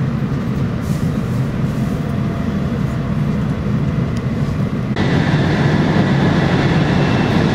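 Steady low rumble inside a car of an E4 series Max double-deck Shinkansen as it stands at or slowly leaves a station. About five seconds in, the sound changes abruptly to a louder running noise with a faint steady high whine.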